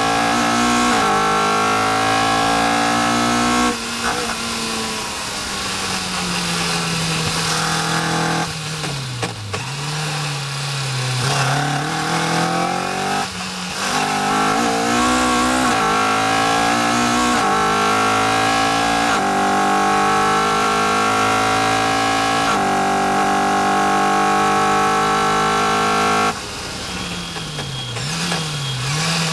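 Caterham R400's four-cylinder engine under hard acceleration on a racetrack, heard from inside the open cockpit: revs climb and drop sharply at each upshift, then fall away under braking with quick throttle blips on the downshifts. A long pull up through the gears follows, and near the end the revs drop suddenly as it lifts for braking, with more blipped downshifts.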